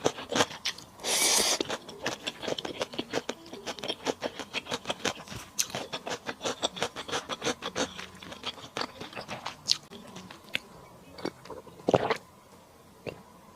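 Close-miked chewing of lemon chicken stir-fry: rapid wet mouth clicks and smacks. There is a short hissing burst about a second in, and the chewing thins out near the end with one louder knock.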